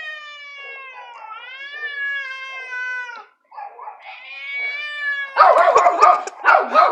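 Domestic cat caterwauling in a fight standoff: a long, wavering threat yowl of about three seconds, then a second shorter yowl, followed near the end by a loud, harsh burst of noise.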